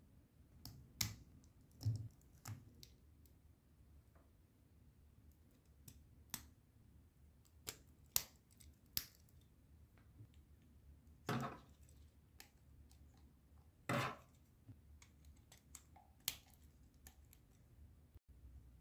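LEGO Technic plastic beams, pins and a wheel being handled and pressed together by hand: scattered sharp clicks and knocks, with two longer, louder plastic sounds about eleven and fourteen seconds in.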